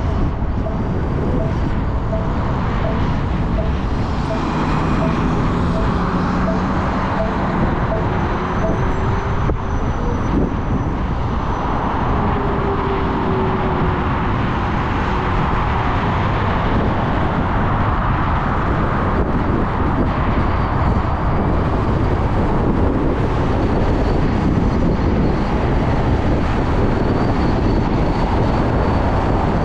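Wind rushing over the microphone and road and traffic noise while riding an electric motorcycle in city traffic. A faint, even beep sounds about twice a second for the first eight seconds or so.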